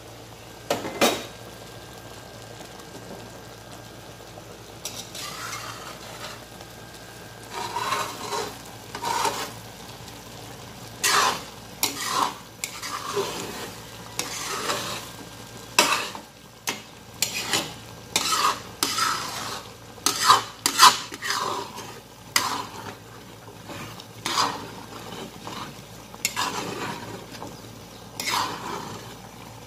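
A single metal clank about a second in, then from about five seconds a metal spatula stirring thick chicken curry in an aluminium wok, scraping the pan in irregular strokes about once or twice a second, over the faint hiss of the simmering pot.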